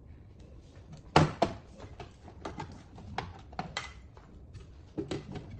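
Plastic parts of an LG front-loading washing machine door knocking and clicking as they are handled and set down: two sharp knocks about a second in, then scattered lighter clicks.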